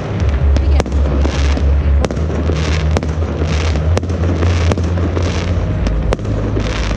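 New Year's Eve fireworks: sharp bangs about once a second, with crackling bursts between them over a continuous deep rumble.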